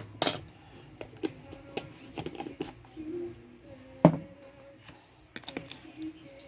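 A spoon stirring a soy sauce and vinegar marinade in a bowl, with irregular clinks and scrapes against the bowl and one louder knock about four seconds in.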